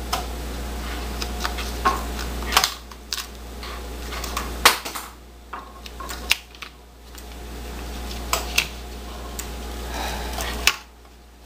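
Scattered sharp clicks and taps of small tools and parts being handled and set down on a wooden tabletop, the loudest a little before halfway, over a steady low hum.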